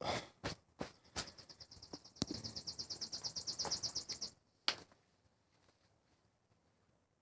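Knocks and clicks of hand tools working on the air conditioner's housing, with a rapid, high, evenly pulsed trill of about fourteen pulses a second lasting about two seconds midway, and a last sharp knock before it goes quiet.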